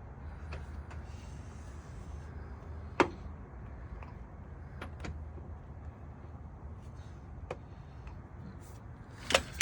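Sharp clicks and knocks of a rubber intake hose boot and plastic air box being worked into place by hand, a few single clicks spaced seconds apart and two louder ones close together near the end, over a low steady hum.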